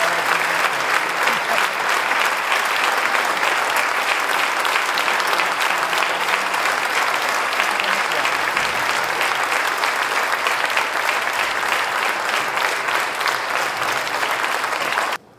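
Theatre audience applauding: dense, steady clapping that cuts off abruptly near the end.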